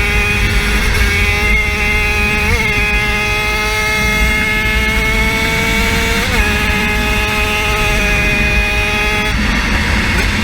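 50cc engine running at full power: a high, steady note that climbs slowly, with two brief blips in pitch, one a couple of seconds in and one about six seconds in, and the note falling away near the end.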